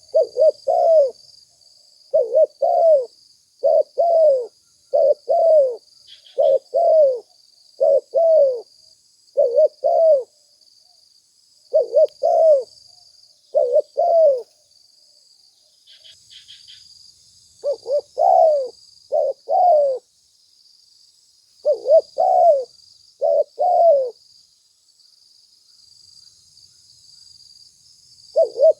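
Spotted dove cooing: short coo phrases repeated about once every one to two seconds, with pauses of a few seconds about halfway through and near the end, over a faint steady high hiss.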